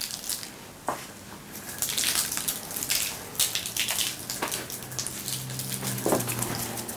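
Salt sprinkled by hand onto sliced potatoes on a parchment-lined baking tray: a dry, rain-like patter of grains that comes in several pinches.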